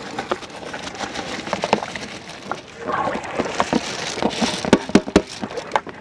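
Soaked basmati rice pouring into a large aluminium pot of boiling water and then stirred with a long metal ladle, a steady pattering, splashing wash. A few sharp knocks of the ladle against the pot come near the end.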